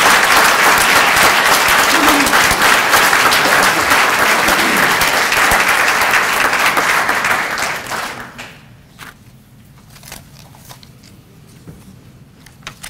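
Audience applauding for about eight seconds, then the clapping dies away, leaving a quiet room with a few scattered clicks.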